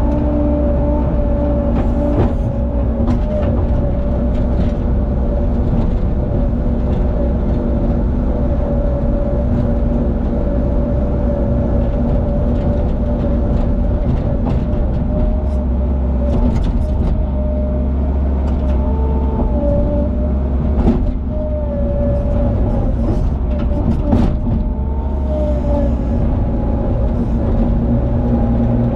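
Skid steer loader engine running steadily, heard from inside the cab, as its bucket grades dirt and stones, with a few sharp knocks along the way.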